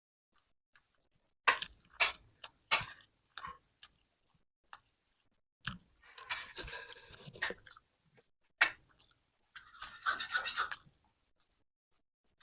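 Eating sounds close to the microphone: a few sharp wet smacks, then two spells of chewing and mouth noise.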